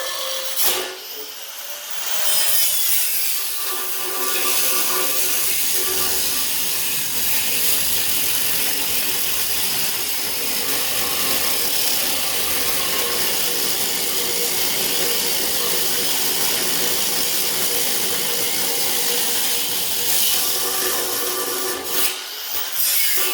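A power cutting tool cuts through the steel body of a safe in one long steady run, starting about two seconds in and stopping briefly near the end.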